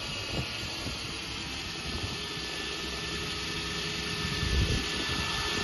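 2003 Nissan Frontier's engine idling steadily just after a cold start in sub-zero cold.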